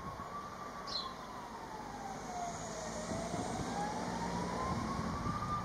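An emergency vehicle siren wailing slowly: its pitch falls through the first half and rises again through the second, over a steady low background rumble.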